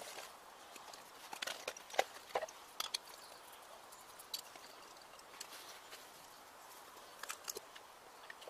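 Handling noises from a small camping cook kit: scattered light clicks and knocks of a mug and pot being moved, a cluster of them a second or two in and a few more near the end, over a faint steady outdoor hiss.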